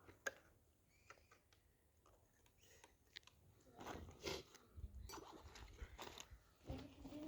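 Near silence with a few faint scattered clicks and knocks, the sharpest just after the start and a loose cluster in the second half.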